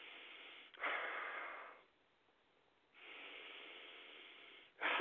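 A man breathing heavily into the microphone while trying to calm down from an angry outburst. There is a long breath, a louder breath about a second in, a pause of about a second, then another long breath.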